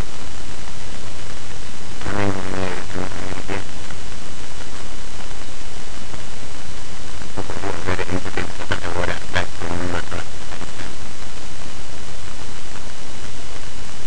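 Steady loud hiss from a poorly set-up microphone, with a voice heard briefly twice under it.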